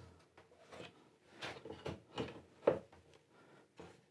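A plastic doweling jig (Wolfcraft Meisterdübler) and a wooden board being shifted into alignment by hand, giving a handful of light knocks and scrapes; the loudest knock comes about two-thirds of the way through.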